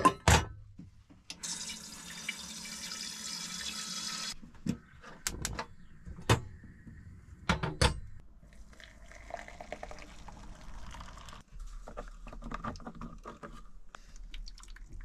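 Water running from a small sink tap for a few seconds, with sharp knocks and clatter of a pan being handled and washed up, then softer splashing and scrubbing.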